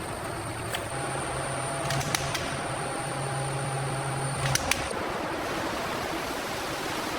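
Steady factory machinery noise, like a fan or air handling, with a low hum between about one and four and a half seconds in and a few sharp clicks.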